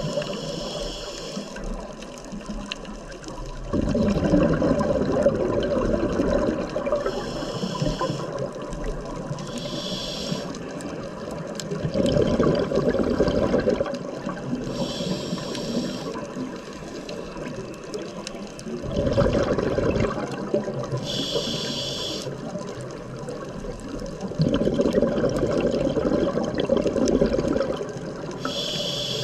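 Scuba diver breathing through a regulator underwater: a short hiss on each inhale, then a longer rush of exhaled bubbles. Four or five breaths, about one every six to seven seconds.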